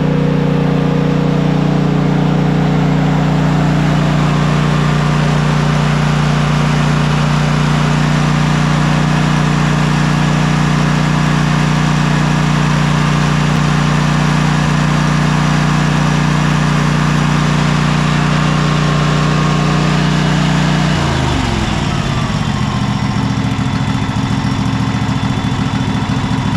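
Cub Cadet XT2 riding mower's 679cc fuel-injected engine running steadily at speed, then slowing after about twenty seconds to a lower, lumpier idle. It keeps running throughout, the sign that the start-and-stall fault is cured after the loose ground was tightened.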